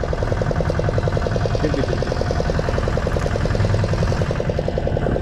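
Fishing boat's engine running steadily with a fast, even beat.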